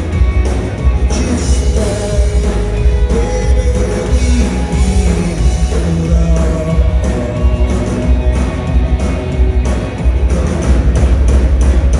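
Live rock band with electric guitars, bass and a drum kit, and a male lead vocal singing over them.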